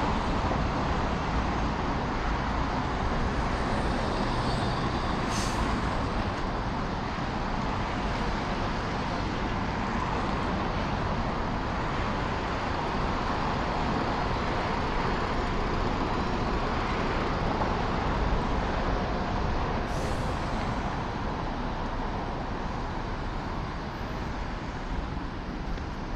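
Steady road traffic on a busy city avenue: cars, buses and trucks passing in a continuous rumble. Two short high hisses, about 5 and 20 seconds in.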